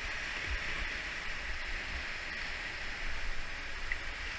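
Steady rushing of whitewater river water, with faint low rumbles now and then.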